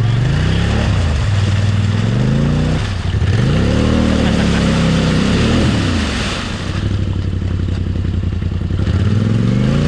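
ATV engine revving up and down repeatedly, its pitch rising and falling every second or two, over a second engine's steadier note.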